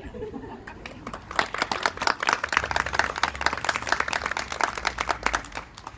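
A small group of people clapping, starting about a second and a half in and dying away near the end.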